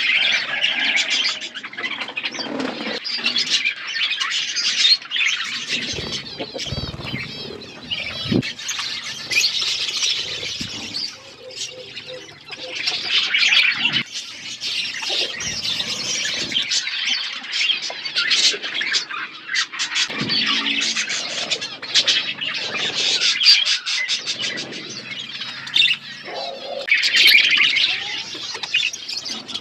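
A flock of budgerigars chattering, chirping and squawking without a break, with wings fluttering now and then.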